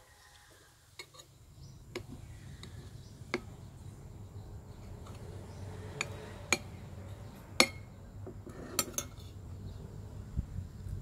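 Metal spoon clinking against a plate as rice is dished up: scattered sharp clinks, some in quick pairs, the loudest about two-thirds of the way through.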